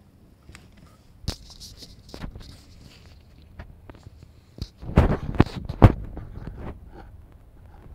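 Irregular knocks, taps and rustles, with a cluster of louder knocks about five to six seconds in.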